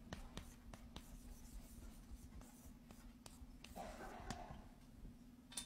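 Chalk writing on a chalkboard: a scatter of faint light ticks and scratches as letters are stroked out, over a faint steady low hum.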